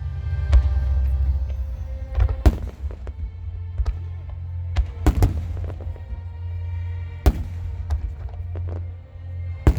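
Aerial fireworks shells bursting with sharp bangs, about seven of them at irregular intervals, over music with long held notes.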